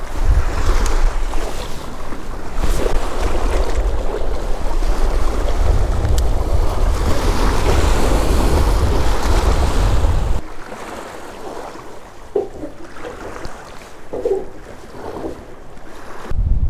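Strong wind buffeting the camera microphone: a heavy low rumble that drops away suddenly about ten seconds in, leaving a quieter, thinner noise, before a fresh gust hits near the end.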